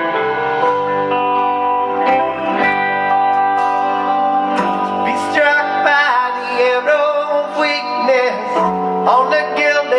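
Recorded music: an instrumental passage of held chords with guitar, its notes bending and sliding in pitch from about halfway through.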